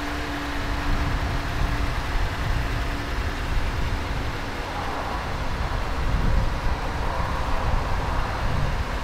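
A 2020 Jeep Grand Cherokee idling: a low, steady rumble.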